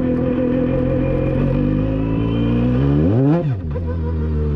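Mazda 13B Renesis two-rotor rotary engine of a Pro Formula Mazda racecar running steadily, its pitch creeping up. About three seconds in it revs up sharply and falls straight back before settling again.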